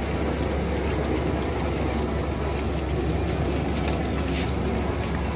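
Crab fry gravy bubbling and sizzling steadily in a large wok over a gas flame, with a constant low hum underneath.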